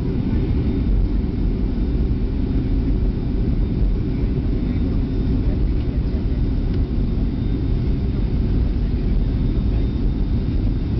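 Boeing 737 cabin noise during the takeoff roll: the jet engines at takeoff power make a steady, heavy rumble, with a faint high whine above it.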